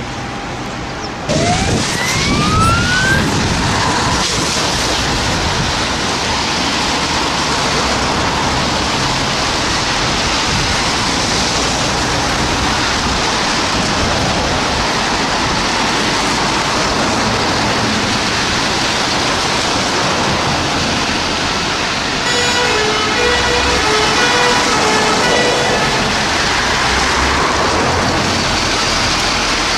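UK fire engine's two-tone horns sounding their alternating high-low call for about three seconds, three quarters of the way through. Under the horns is a loud steady rush of vehicle noise that starts suddenly about a second in, with a short rising pitch sweep just after it.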